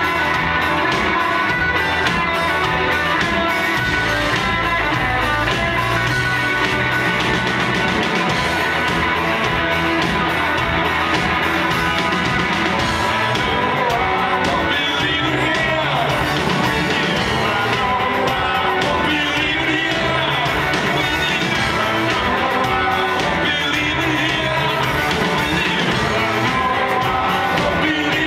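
Rock band playing live at full volume: electric guitars, bass and drums driving a steady beat, with a lead singer's vocals, heard from within the audience.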